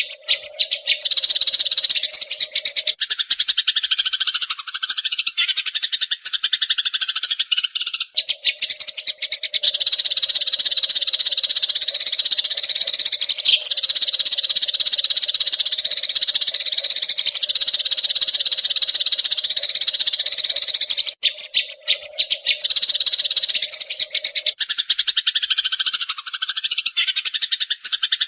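Eurasian tree sparrows chirping in a rapid, dense, unbroken chatter, with short breaks about 8 seconds and 21 seconds in.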